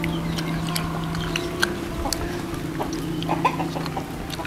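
People chewing chicken satay pulled off bamboo skewers: a scatter of small sharp clicks and mouth smacks over a steady low hum.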